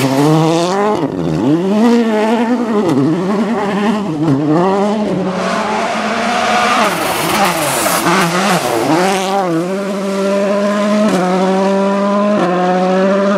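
Volkswagen Polo R WRC rally car's 1.6-litre turbocharged four-cylinder engine revving up and down over and over as the car slides through gravel corners. After about nine seconds it pulls harder and steadier, rising in steps through upshifts.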